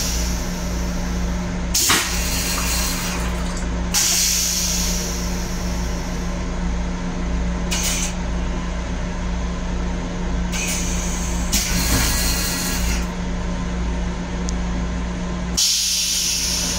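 Steady low rumble and hum of an M7 electric railcar, heard from inside its small restroom. Short surges of hiss come and go every couple of seconds.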